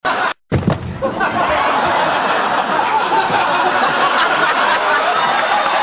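Studio audience laughing steadily, many voices together, after the sound cuts out briefly just under half a second in.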